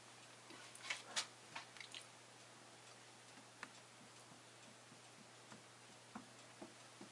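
Near silence: quiet room tone with a faint steady hum and a few light, irregular taps and clicks, most of them in the first two seconds, from a kitten pawing at a small ball on carpeted stairs.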